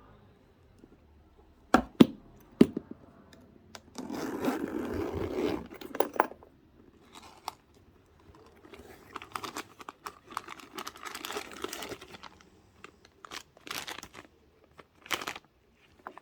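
Unboxing packaging being handled: three sharp knocks about two seconds in, then a louder stretch of paper rustling a second or two later, and more intermittent paper rustling and crinkling through the rest.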